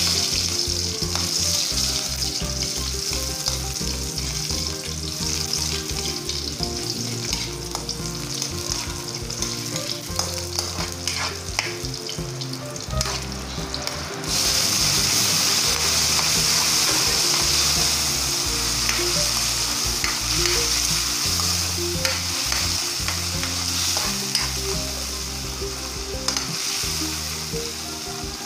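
Garlic and sliced onion sizzling in hot oil in a metal wok, with short clicks from stirring now and then. The sizzle grows suddenly louder about halfway through.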